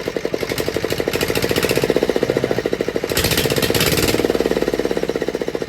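Single-cylinder Greaves diesel engine of a BCS reaper binder running with an even, rapid tak-tak knock. It has just been rebuilt, and the steady beat is the healthy sound of a single-cylinder diesel running well.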